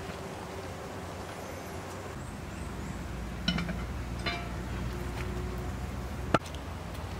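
Steady low rumble with a few light clinks about halfway through and one sharp click shortly before the end.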